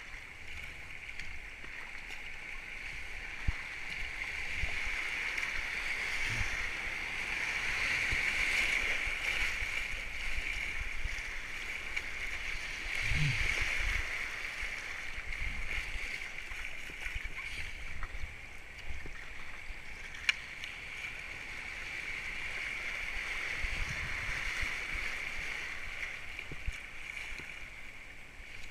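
Whitewater rushing around a racing kayak as it runs a rapid, heard from a helmet camera, swelling louder as the boat gets into the rough water. Occasional low thumps and a few sharp clicks sound over the rush.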